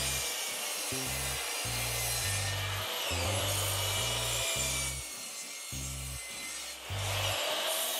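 Craftsman sliding compound miter saw running and cross-cutting a pine board to length. Its whine dips and recovers about three seconds in as the blade works through the wood, eases off for a second or two, then runs up again near the end.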